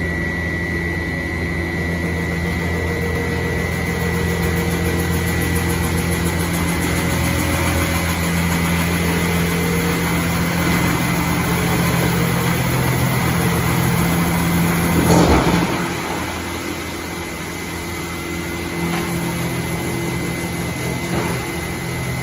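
A drum wood chipper running steadily, with a steady high whine over the machine's hum. About fifteen seconds in there is a short, loud, noisy burst.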